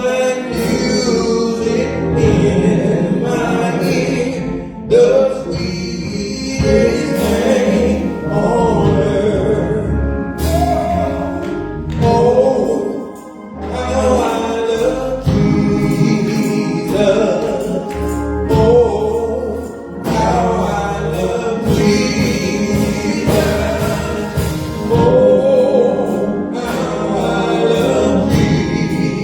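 Gospel choir singing with a band: bass, drums and keyboard.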